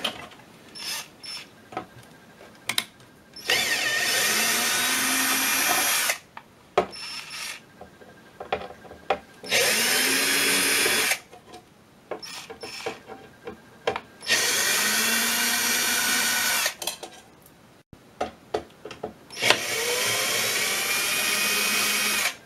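Einhell cordless drill-driver running in four separate bursts of about two seconds, its motor spinning up at the start of each, as it backs out the four screws of an aluminium access cover. Short clicks of the bit and handling come between the runs.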